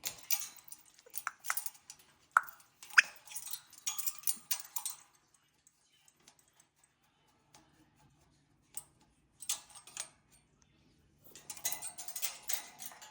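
Scattered light clicks and clinks of small hard objects, coming in clusters with pauses between them. There are two short, sharp squeaks about two and three seconds in.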